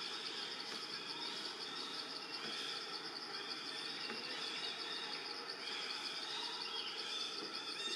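Forest ambience: a steady, high insect trill that pulses rapidly and evenly, with scattered short bird calls below it.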